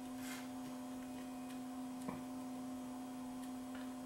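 Steady electrical hum, with one faint click of a small push button about two seconds in as the finished dot matrix clock kit's menu is stepped through.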